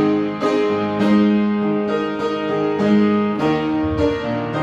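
Keyboard or piano playing sustained chords in a steady rhythm, the instrumental lead-in to a worship song.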